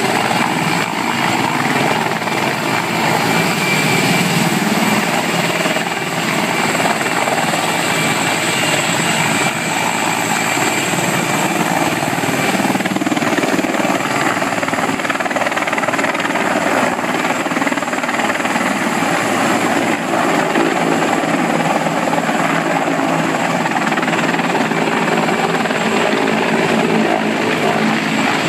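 CH-53 heavy transport helicopter flying low: loud, steady rotor noise with a constant high whine from its twin turbine engines.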